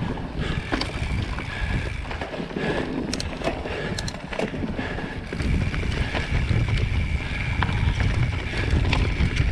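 Mountain bike rolling along a forest dirt trail: tyres on dirt with the bike rattling in sharp clicks and knocks over roots and stones, and wind rumbling on the microphone, heavier from about halfway.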